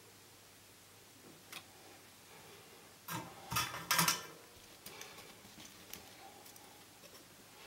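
Light clicks and small metallic taps from soldering tools being handled at the workbench, with a cluster of louder taps about three to four seconds in as the soldering iron is lifted away, then a few faint ticks.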